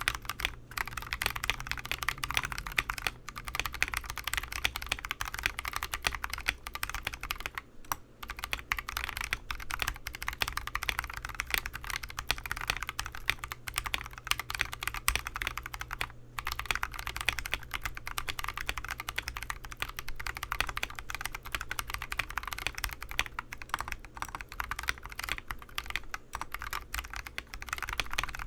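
Continuous fast typing on a mechanical keyboard with lubed Durock T1 62 g tactile switches, Gateron Milky polycarbonate-free housing tops and a wooden TADA68 case. Brief pauses come about 8 and 16 seconds in.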